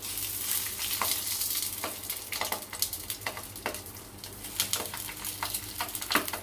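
Hot oil in a nonstick frying pan sizzling and crackling as banana-leaf-wrapped fish parcels are laid into it one after another. The hiss is strongest in the first couple of seconds, with scattered sharp pops throughout.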